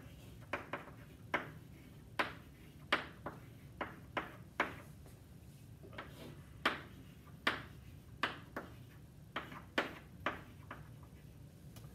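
Chalk tapping and scraping on a chalkboard as a short formula is written: a string of sharp, irregularly spaced clicks and brief scratches over a low, steady room hum.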